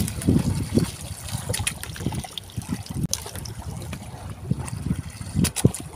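Sea water lapping and slapping against the hull of a small wooden fishing boat in irregular low surges, with a few light clicks.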